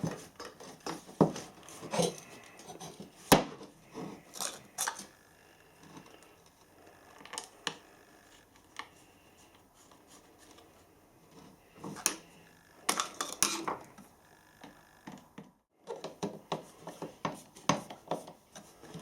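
Scattered clicks, taps and light rattles of small hard parts being handled on a workbench: the grinder's mains cable, rubber cable sheath and plug being refitted, with a busier run of clicks about two thirds of the way through.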